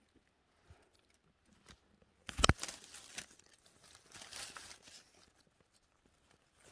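One loud knock about two and a half seconds in, followed by scattered rustling and crackling of dry forest undergrowth.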